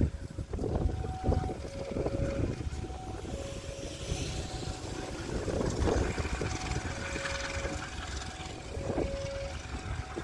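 Diesel locomotive engine running under power as it pulls away, a steady low rumble. Behind it a two-note electronic alarm alternates between a low and a high beep, each about half a second long.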